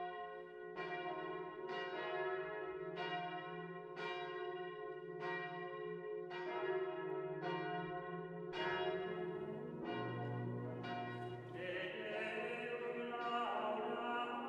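Church bell tolling about once a second, each stroke ringing on. About ten seconds in, low male voices of monks' chant come in over the fading bell.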